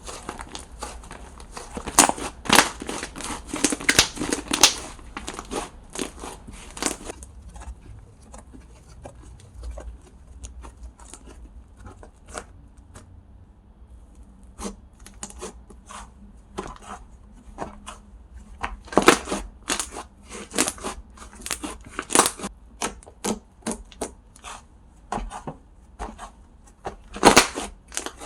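Slime being handled close to a pin microphone: sharp clicking and crackling pops, in dense runs a couple of seconds in and again past the middle, sparser in between.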